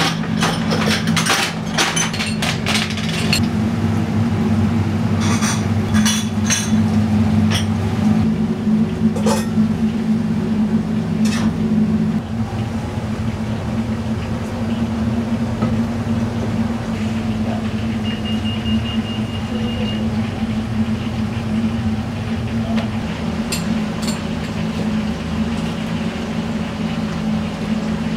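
Steady low hum of commercial kitchen equipment, with small ceramic dishes clinking as they are stacked onto metal trays in the first few seconds and a few isolated clicks later.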